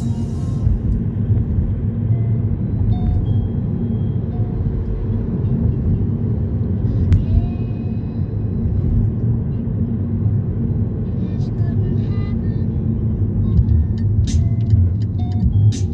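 Steady low rumble of a car's engine and tyres on the road, heard from inside the cabin while driving at town speed.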